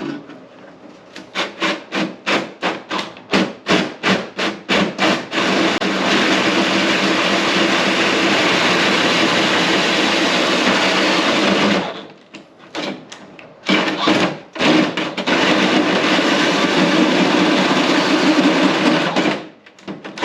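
Power drill boring a hole: run in short quick bursts for the first few seconds, then held on steadily, with a brief pause near the middle before it runs steadily again.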